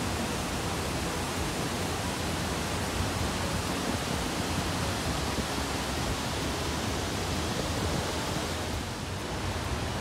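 Waterfall pouring from a bridge into a canal: a steady, even rushing of falling water that dips slightly near the end.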